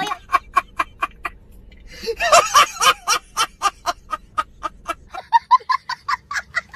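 A man laughing hard in rapid short pulses, about five a second, pausing briefly after a second and then starting again. Near the end the laughter turns higher-pitched, a child laughing.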